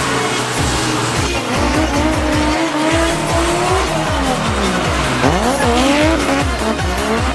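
Drift car engine revving up and down as it slides, with tyres squealing, over background music with a fast steady beat. The engine note falls sharply about five seconds in, then climbs again.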